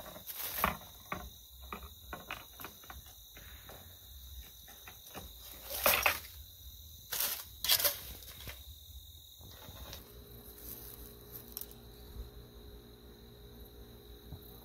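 Leaves and branches rustling and snapping as a long pole jabs into a tree to knock a small foam model airplane loose, in quick bursts with two loud crashes of foliage about six and seven and a half seconds in. Insects trill steadily throughout, and after about ten seconds only quieter background remains.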